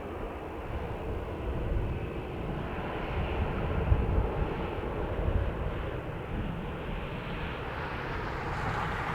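Aircraft engine noise, a steady rush from an airliner at the airport, with wind gusting on the microphone as low rumbles that are strongest around the middle.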